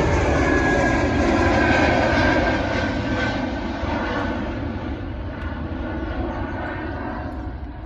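Airplane engine noise overhead, a steady drone that fades away over the last few seconds as the aircraft moves off.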